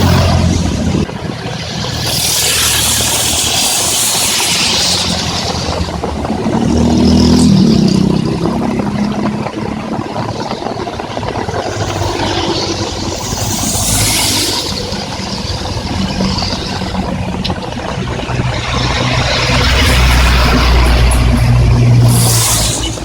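Heavy rain falling steadily, with vehicles passing on the wet highway: tyres hiss on the wet road three times, and engines rumble as they go by.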